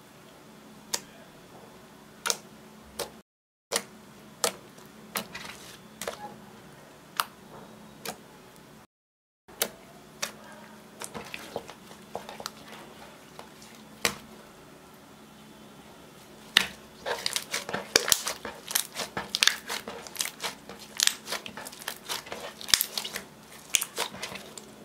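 Hands working sticky clear slime mixed with eyeshadow, making wet pops and clicks: scattered single pops at first, then a dense, crackling run of pops in the last third as the slime is squeezed and kneaded. The sound cuts out completely for a moment twice in the first half.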